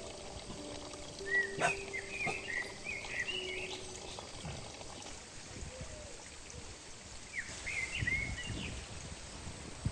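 Small birds chirping in two short bouts of quick up-and-down calls over a steady outdoor hiss, with a few low thuds near the end.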